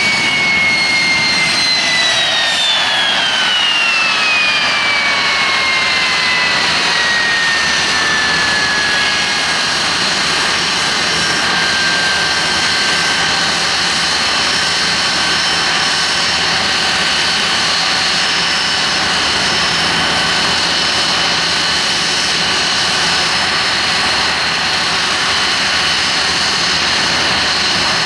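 Hawker Siddeley Nimrod's Rolls-Royce Spey turbofans running as it taxis slowly: a steady jet roar with a high whine that falls in pitch over the first several seconds as the engines spool down, then holds level.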